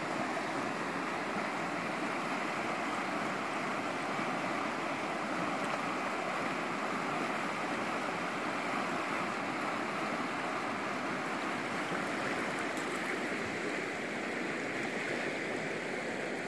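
Shallow river running over rocky riffles: a steady, even rush of flowing water.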